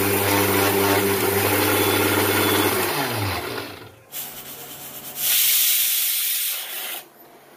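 Electric mixer grinder running while grinding poppy seeds, then spinning down about three seconds in. Then a pressure cooker venting steam with a loud hiss for about two seconds.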